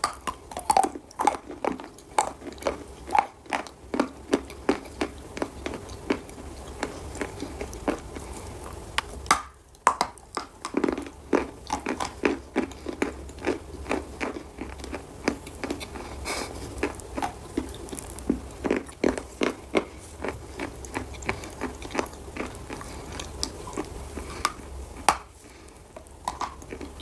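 Chalk being bitten and chewed close to the microphone: a run of sharp crunches and crumbly crackles, several a second, with brief pauses about ten seconds in and near the end.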